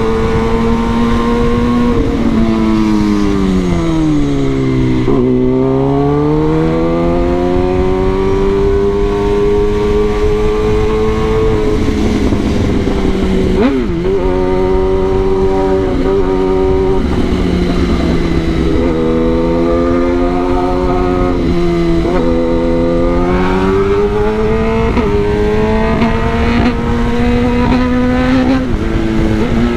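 Kawasaki ZX-10R's inline-four engine on the move. Its pitch sinks about four seconds in and climbs back, then rises and drops several times in the second half as the throttle is worked and gears change, over a steady rush of wind and road noise.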